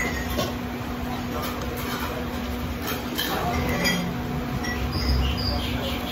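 Steady low rumble of background noise with a constant hum, and a few sharp clicks of metal spoons against porcelain soup bowls while eating.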